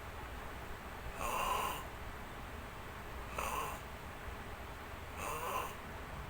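Snoring: three rasping snore breaths, one about every two seconds.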